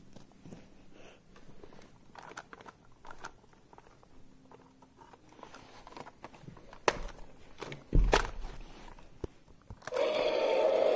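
Plastic toy figures handled and moved on carpet: faint rustling and clicks, a knock about seven seconds in and a heavier thump about a second later. About ten seconds in a loud, sustained roar-like sound starts and keeps going.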